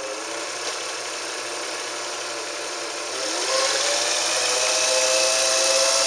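Belvedere Japanese straight-stitch sewing machine's electric motor running with the hand wheel declutched, spinning the bobbin winder to wind a bobbin. It whirs steadily, then speeds up about three seconds in with a rising whine.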